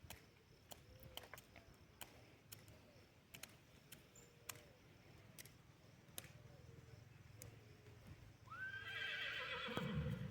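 A horse whinnying once near the end, a quavering call about two seconds long, over faint scattered clicks.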